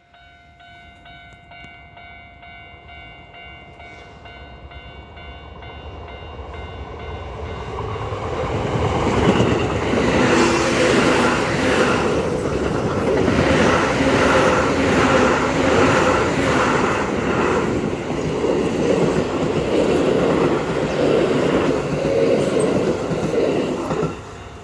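Keio Line electric train passing over a level crossing while the crossing warning bell rings. The train grows from faint to loud over the first nine seconds or so, then passes with rhythmic clacking of wheels over rail joints and a growling motor sound. The sound cuts off abruptly near the end.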